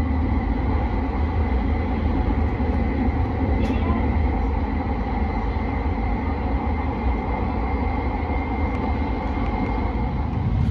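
Steady running noise of a Tohoku Shinkansen train heard from inside the passenger car: an even low rumble with a faint steady high whine on top.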